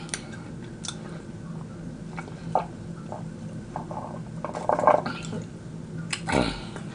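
Slurping through a straw from a glass of shaved ice and red syrup (a snow cone drink): wet sucking sounds with small clicks, loudest about five seconds in. A short sound falling in pitch follows near the end.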